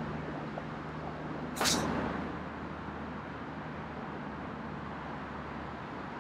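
Golf iron striking a ball off the tee about one and a half seconds in: a single sharp crisp click with a brief high swish, over a steady low background rumble.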